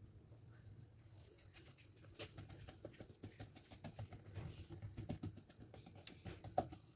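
Faint soft taps and rubbing of hands pressing and patting paratha dough on a wooden board. They grow busier from about two seconds in, with one sharper knock near the end.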